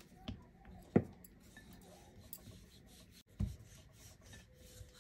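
Wooden rolling pin rolling out dough on a stone rolling board: a soft rubbing scrape, with a sharp knock about a second in and a duller thump past the middle.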